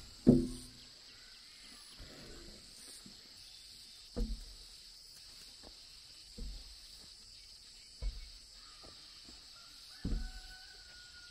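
Heavy blows struck on wood, five in all, about two seconds apart, the first the loudest: the kind of strikes used to chop or chisel holes through wooden house pillars. A steady high insect drone runs behind them.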